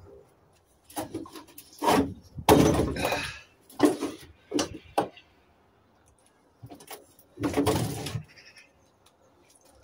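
Stripped gas boiler's sheet-metal chassis being lifted and shifted by hand: a string of clattering knocks and metal-on-metal scrapes, with two longer scrapes, about a third of the way in and again near the end.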